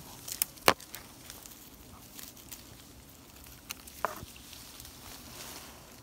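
Tree branches and twigs knocking and cracking under someone climbing: a few sharp cracks in the first second, the loudest near the start, then scattered light clicks and a short falling squeak about four seconds in.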